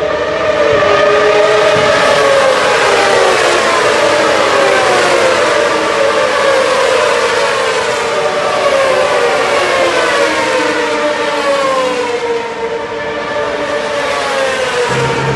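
A pack of 1000cc World Superbike racing motorcycles at high revs on the main straight, several engine notes overlapping and falling gradually in pitch as the bikes pass.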